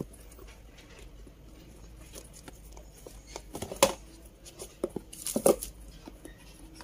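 Handling noise from the Oppo A94's cardboard box as its lid is lifted off: light rustling and scattered taps, with louder clusters of knocks a little before four seconds in and again about five and a half seconds in.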